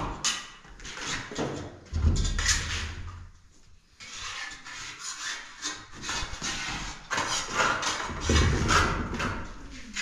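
Wooden straightedge scraping over fresh plaster on a block wall in irregular strokes, with trowel scrapes and a few dull knocks of wood against the wall, and a short lull about three seconds in.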